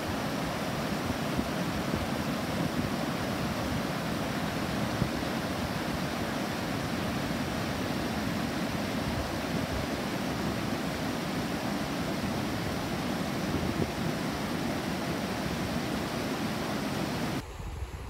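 Steady rush of a rain-swollen stream pouring over a low concrete weir. Near the end it cuts abruptly to a quieter, thinner flow of water.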